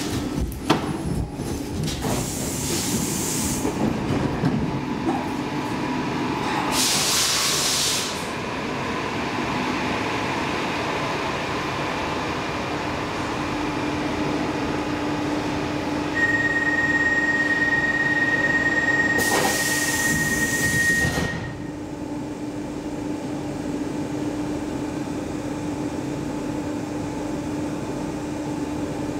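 Stockholm Metro C14 train heard from inside the car as it runs along a platform and comes to a stop, with two loud bursts of air hiss about 7 and 20 seconds in. A steady high tone sounds for about five seconds before the second hiss ends. From about 21 seconds in, all that remains is the lower, steady hum of the train standing.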